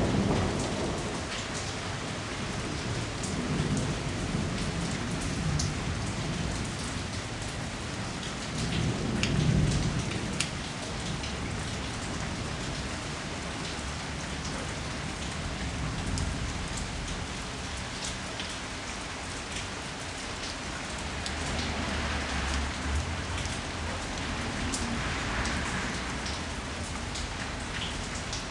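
Steady rain falling, with individual drops ticking sharply on nearby surfaces. Low rolls of thunder swell up a few times, the loudest about nine seconds in.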